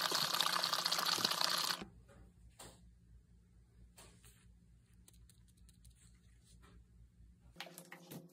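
A squeeze bottle of cutting board oil shaken hard for about two seconds, giving a dense rattling, sloshing noise. Then a few faint clicks of the bottle being handled, and a short run of clicks near the end as oil is squeezed out onto the board.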